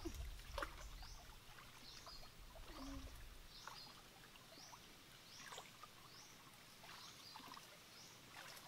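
Faint sloshing and small splashes of stream water as a person wades and gropes with her hands among submerged roots under a bank. Short high chirps repeat about once a second throughout.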